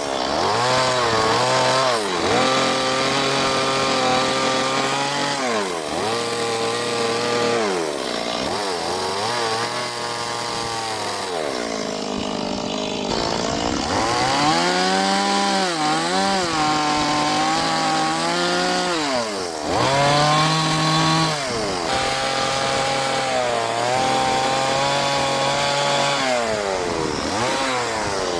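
Chainsaw engine revving up and down over and over as it cuts into wood, its pitch dipping back toward idle every few seconds between cuts.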